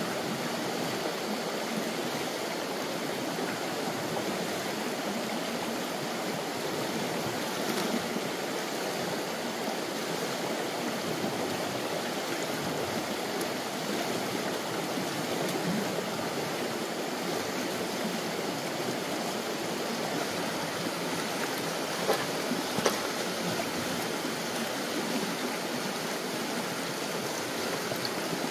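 Steady rush of water flowing in a stream, with two short knocks about three quarters of the way through.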